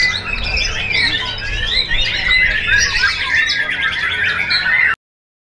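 White-rumped shama (murai batu) song: a dense, varied run of whistles and chatters. It cuts off abruptly about five seconds in.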